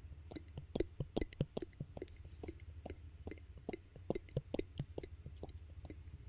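Soft, irregular little clicks and ticks of a thin metal chain necklace being handled close to the microphone, several a second, over a low steady hum.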